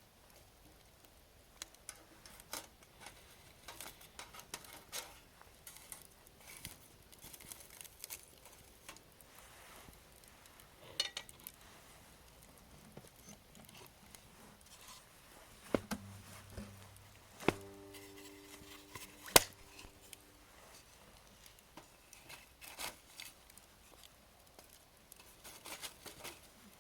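Wood campfire crackling: scattered small sharp pops and snaps of burning wood, with a louder pop about two-thirds of the way in. A faint short ringing tone sounds briefly around the same time.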